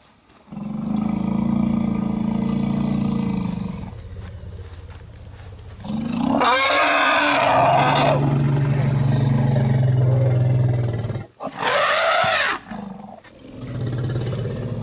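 Young African elephant throwing a tantrum because it wants milk. It gives a long low call, then a loud high scream about six seconds in, another long low call, a second, shorter scream about twelve seconds in, and more low calling near the end.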